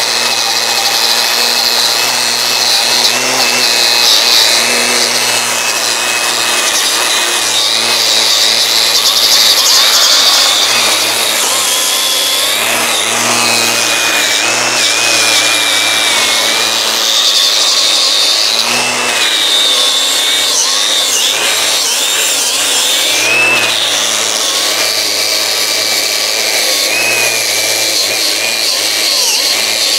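Cordless angle grinder fitted with a wire brush, running against a rusty exhaust muffler and pipe and scrubbing the rust off. Its high whine wavers continuously as the brush is pressed and eased off the metal.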